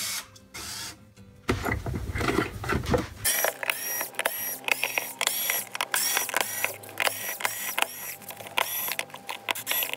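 A cordless drill-driver runs briefly at the start, undoing a screw on an electric unicycle's battery cover. Then comes handling noise and a long run of quick clicks and rattles as the plastic cover and shell are worked loose by hand.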